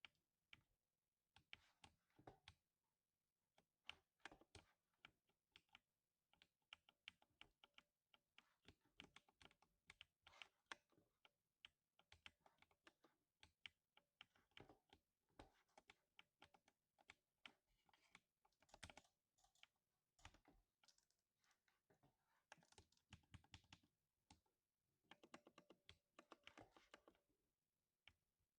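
Faint typing on a 60% mechanical keyboard with lubed silver linear switches: quick keystrokes in irregular runs, with short pauses between them.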